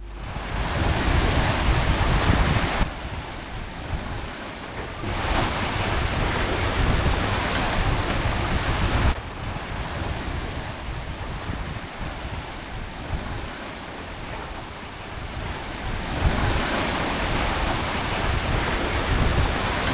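Wind buffeting a small camera's microphone, with waves on a lake. The rumble and hiss jump abruptly up or down a few times from one shot to the next.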